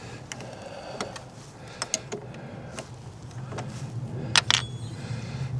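Light metallic clicks and taps of hand tools being worked at the truck's battery, with two sharper clicks in quick succession near the end, over a steady low hum.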